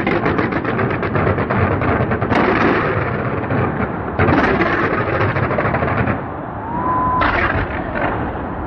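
Fireworks going off: a rapid run of crackling bangs, then heavier bursts in waves, with a short rising whistle shortly before the last burst.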